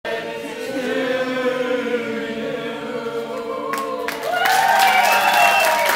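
A roomful of people singing together without accompaniment, ending in a long held note as clapping breaks out about four and a half seconds in.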